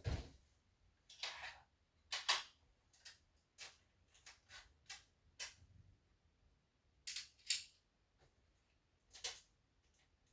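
A series of about a dozen sharp clicks and taps at irregular intervals, some in quick pairs.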